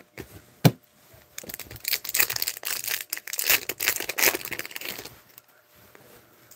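Foil wrapper of an Upper Deck hockey card pack being torn open and crinkled by hand, a dense crackling lasting about four seconds. A single sharp tap comes shortly before it, less than a second in.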